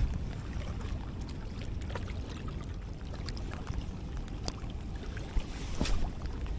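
Steady wind rumble buffeting the microphone, broken by a few sharp clicks from handling the spinning rod and reel while casting and retrieving, about four of them spread through.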